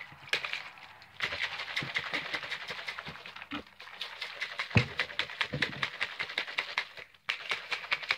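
Plastic shaker cup of G Fuel drink mix being shaken hard: a fast, irregular clatter of many sharp clicks a second. It starts about a second in and stops near the end.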